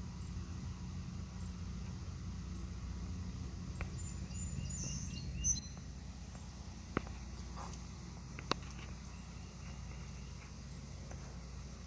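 Outdoor ambience: a steady low rumble, a brief burst of high chirping about five seconds in, and two sharp clicks about a second and a half apart.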